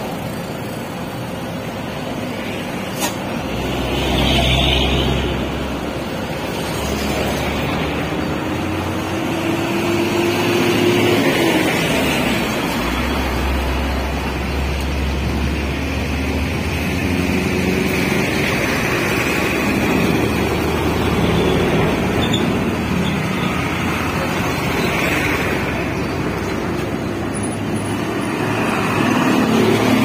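Diesel engine of a Niigata NFB6W asphalt paver running steadily while it lays hot-mix, with trucks and other road traffic passing close by in several swells. A single sharp click about three seconds in.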